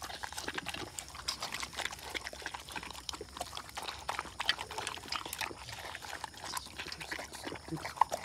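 Rottweiler puppy eating a wet mix of kibble, rice and curd from a steel bowl: a steady run of irregular wet smacking and chewing clicks, with a sharper click near the end.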